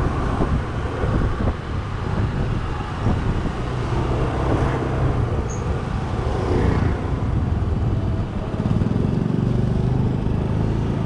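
Small scooter engine running at road speed, with a steady hum under wind and road rush; the engine sound grows a little louder for a couple of seconds near the end.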